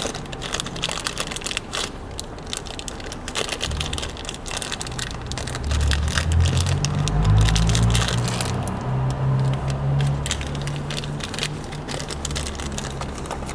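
Clear plastic bag crinkling and crackling with small clicks as gloved hands open it and take out a plastic accessory. A low hum swells underneath from about four seconds in, loudest in the middle.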